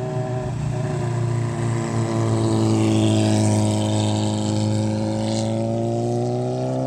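Motorcycle engine running at steady revs, its pitch sagging slightly and then rising again near the end.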